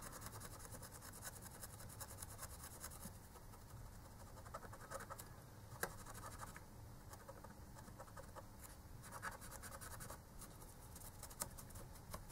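Faint scratching of an alcohol-wetted swab rubbed back and forth over a contact pad on a hard-drive circuit board, with a few slightly louder ticks.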